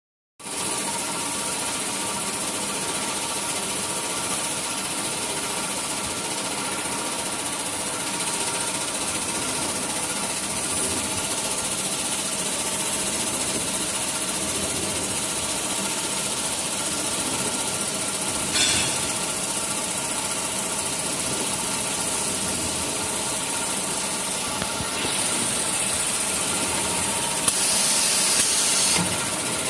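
XY-AI-500 automatic maxi roll tissue band saw cutting machine running: a steady mechanical drone with several steady tones and a high hiss. A short louder burst of hiss comes about two-thirds through, and the hiss grows louder for a few seconds near the end.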